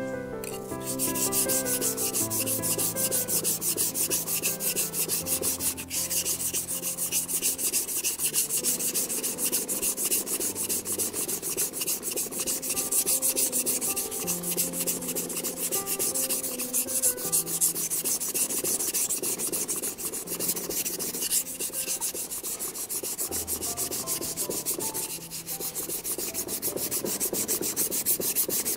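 Steel blade of a warikomi santoku knife ground back and forth on a wet coarse #220 whetstone, a continuous gritty scraping of rapid strokes. The grinding thins the blade behind the edge.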